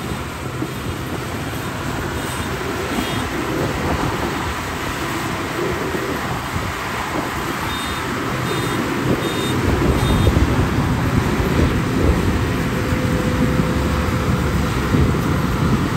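Zoomlion FH100E rice combine harvester running under load while it cuts and threshes rice: steady diesel engine and machinery noise that grows louder about ten seconds in.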